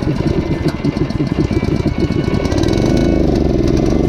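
An engine running, loud and rough, with its pitch rising and then falling again about three seconds in.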